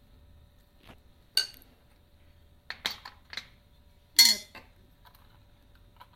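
Kitchen utensils clinking and knocking against a bowl a few times while a chicken marinade is being mixed, the loudest, ringing clink about four seconds in.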